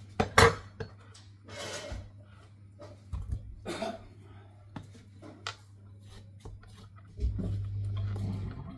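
Chef's knife cutting up a watermelon: sharp knocks of the blade on the cutting board, the loudest about half a second in, and short rasping slices through the rind, with a longer rasping cut near the end. A faint steady low hum lies underneath.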